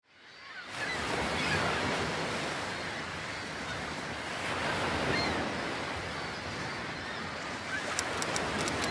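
Steady wash of small waves on a sandy shore, fading in over the first second. A few faint high chirps come through, and a quick run of faint high clicks sounds near the end.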